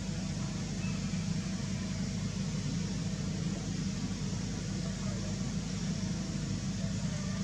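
Steady low mechanical hum, unchanging throughout, with a rushing noise over it.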